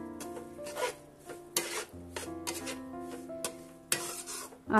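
A metal spatula stirring and scraping a thick mix of roasted gram flour and ground flaxseed around a metal kadhai, in several separate strokes, over soft background music with held notes.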